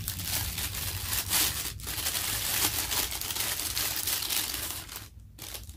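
Thin plastic wrapping crinkling and rustling as hands pull a camera lens out of its bag, with a few sharper crackles; the rustling dies away near the end.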